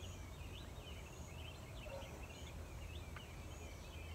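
Faint birdsong: many quick chirps over a low steady hum.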